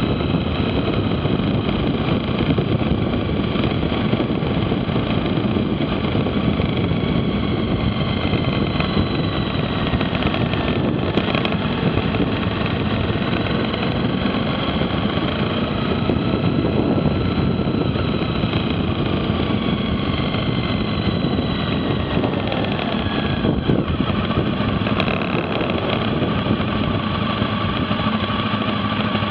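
Motorcycle engine running under heavy wind rush, heard from on board the bike as it slows from road speed, the engine note sliding lower through the middle.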